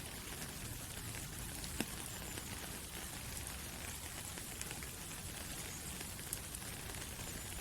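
Steady rain falling through trees, pattering on leaves, with one sharper drip a little under two seconds in.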